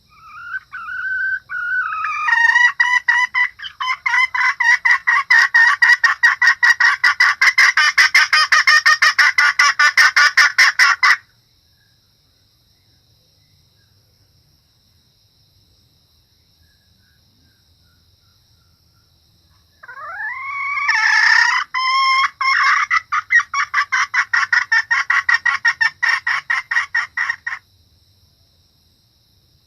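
Junglefowl hen calling in two long bouts of fast, repeated cackling notes. Each bout opens with a few rising notes, and the first bout stops about eleven seconds in. The second bout starts about eight seconds later.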